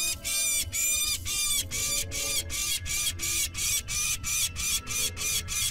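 Peregrine falcon giving a rapid series of harsh alarm calls, about three to four a second, quickening about two seconds in.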